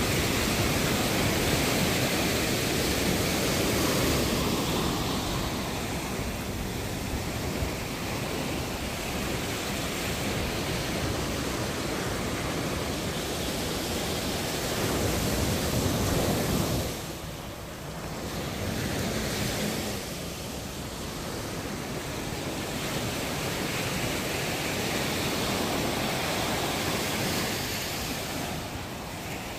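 Sea surf breaking and washing ashore, with wind rumbling on the microphone. The noise swells and eases, dipping briefly about two-thirds of the way through.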